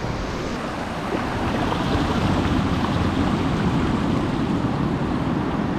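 Ocean surf breaking and washing up a beach in a steady, loud rush of noise that swells a little after about a second and a half. The sea is rough, with high, strong waves.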